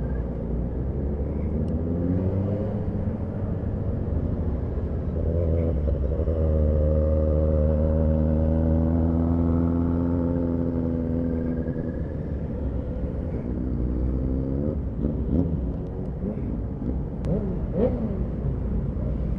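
Motorcycle engine heard from the bike it drives, over wind and road rumble. It picks up speed with a rising pitch a few seconds in, holds steady, then falls in pitch as the bike slows. It ends running low and unevenly as it creeps along.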